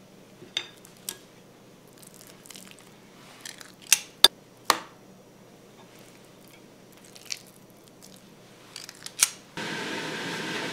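Sharp metallic clicks of a stainless spring-loaded meatball scoop, snapping each time its squeeze handle releases a portion, several spaced out irregularly, with the loudest few near the middle. About a second before the end a steady, even noise cuts in.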